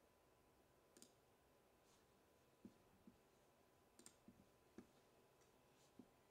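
Near silence with faint, irregular small clicks, about seven spread over six seconds.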